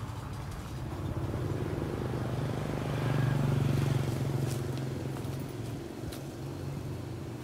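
Engine of a passing motor vehicle: a steady low hum that swells to its loudest about three seconds in, then slowly fades away.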